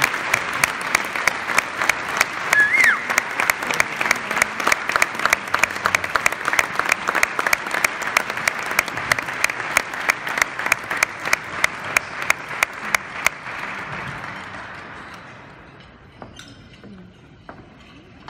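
Audience applauding, with one person clapping close by in a steady rhythm of about four claps a second over the crowd's applause. The close clapping stops about three-quarters of the way through and the applause dies away soon after, leaving a few faint knocks.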